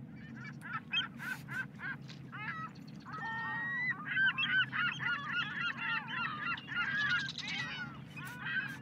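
Geese honking: a few separate calls at first, then many overlapping honks from about halfway through, over a steady low hum.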